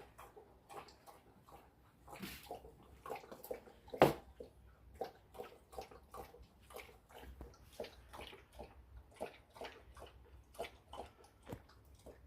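Akita dog moving about on a wet floor: a string of short, irregular wet clicks and taps, with one sharper knock about four seconds in.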